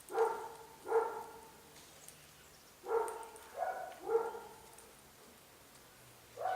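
A dog barking in short single barks, about six at uneven intervals.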